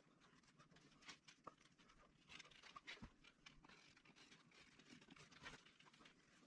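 Faint, scattered light scratches and ticks of a razor blade slicing soft-top fabric along the edge of an aluminum header bow.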